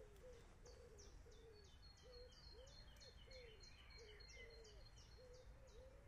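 Faint woodland birdsong. A rapid run of high, downward-sweeping notes, about three a second, stops near the end. Under it runs a steady series of low, arched hooting notes, about two a second.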